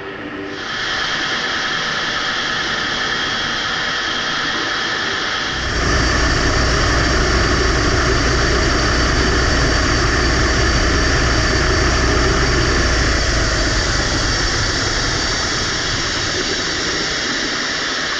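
Metal lathe running at high spindle speed with a GoPro camera spinning in its chuck: steady gear whine over rushing air noise. The sound steps up twice, once just after the start and again about six seconds in, when a deep rumble joins, and eases slightly near the end.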